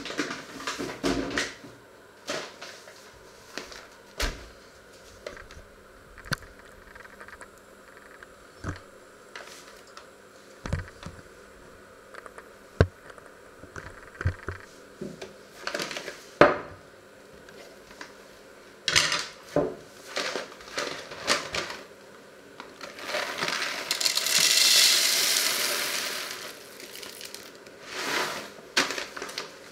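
Scattered knocks and clicks of objects being handled on a wooden counter. About three-quarters of the way in comes a three-second rushing rattle of coffee beans being poured into a coffee grinder's hopper, followed by a few more clicks.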